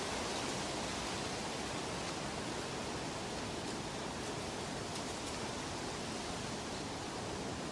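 Steady, even rushing noise with no tune or rhythm, a relaxation ambience of the rain or running-water kind, with a few faint high ticks in the middle.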